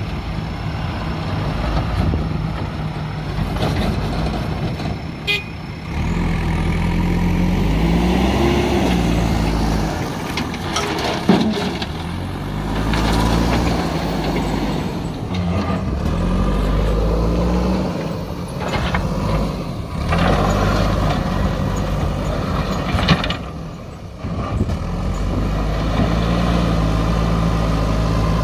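JCB backhoe loader's diesel engine running, its pitch rising and falling as it is worked, with occasional sharp knocks.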